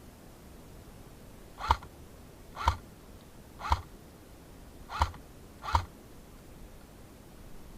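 Airsoft gun firing five single shots, roughly one a second, each a sharp snap with a brief build-up just before it.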